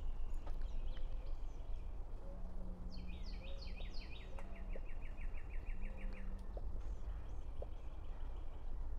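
Wild songbirds calling: a few quick down-slurred notes, then a fast trill of repeated chips lasting a few seconds, with fainter trilling later. Underneath are steady low background noise and a faint low hum in the middle.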